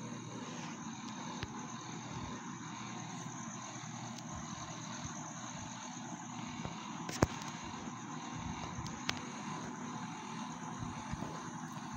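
Steady background noise with a constant high-pitched trill, broken by a few faint clicks and one sharper click about seven seconds in.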